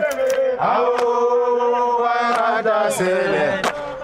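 Men's voices chanting in long held notes, with a few sharp hits.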